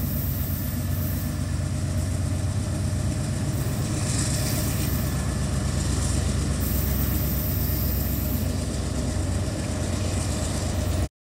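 Canadian Pacific diesel locomotive leading a tank-car train, its engine running with a steady low rumble as it approaches slowly. The sound cuts off suddenly near the end.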